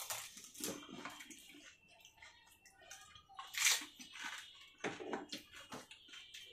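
Wet crunching and slurping of fuchka being eaten: crisp puri shells bitten and chewed along with their spiced water, in irregular bursts, the loudest about three and a half seconds in.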